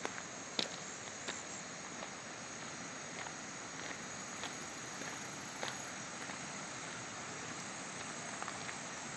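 Footsteps on an outdoor walk: irregular light steps over a steady high hiss.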